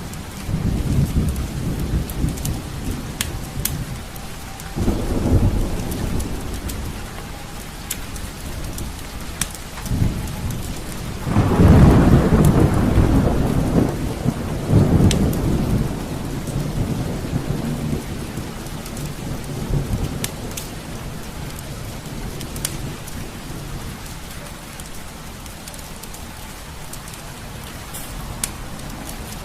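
Thunderstorm: steady rain with several rolls of low rumbling thunder, the longest and loudest about twelve seconds in, then dying away. Scattered sharp ticks sound over it throughout.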